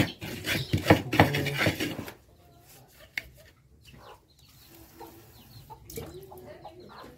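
Stone pestle scraping and knocking in a shallow mortar as food is ground by hand, with sharp strokes for about two seconds. After that it goes quiet apart from faint chicken clucking.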